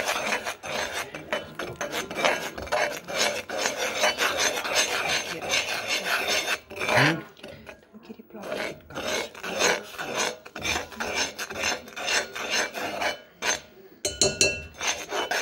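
A metal spoon scrapes and rasps against the bottom of a pot in quick repeated stirring strokes, working a gritty mix of sugar and honey that has not yet fully melted, with a short break about halfway through.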